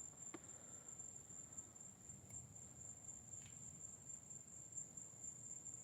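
Crickets trilling steadily, a faint, high, unbroken chirring with a couple of tiny clicks.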